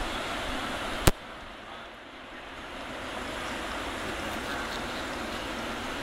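Steady rushing outdoor noise on a phone microphone, with one sharp click about a second in; right after the click the noise drops and then builds back over a couple of seconds.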